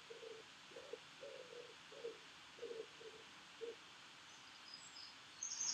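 A pigeon cooing faintly, a run of low hoots that stops a little before the end. Right at the end a small songbird starts chirping.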